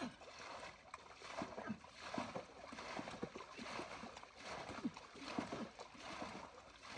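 Muddy water splashing and pouring in irregular splashes as a wooden boat is bailed with a metal bowl and aluminium pots are dipped and rinsed.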